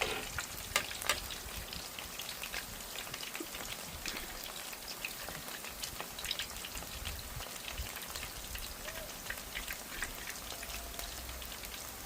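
Lumpia deep-frying in hot oil in an electric pan: steady crackling and spattering of oil, with a few louder pops in the first second or so.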